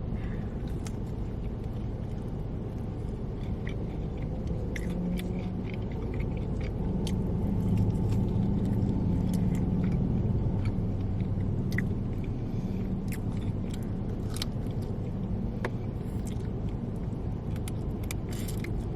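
Close-up chewing and biting of crunchy fried food, with scattered wet mouth clicks and crackles, over a steady low rumble in the background.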